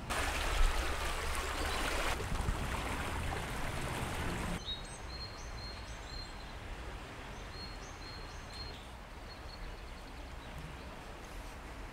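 Fast-flowing river water rushing, a loud steady rush that stops suddenly about four and a half seconds in. After that comes a quieter outdoor background with scattered short high chirps.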